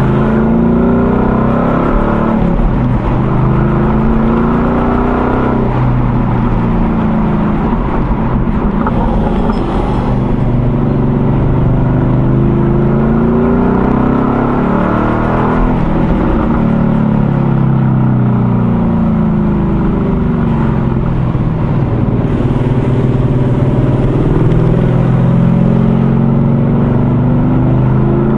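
Ford Mustang Boss 302's 5.0-litre V8 pulling hard through the gears. Its exhaust note climbs in pitch and drops back at each shift, several times over, with steady road and wind noise underneath.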